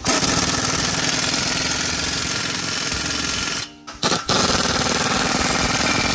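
Pneumatic impact wrench hammering on the exhaust clamp bolts under the car, a fast, loud rattle. It runs in two long pulls with a brief stop a little past halfway.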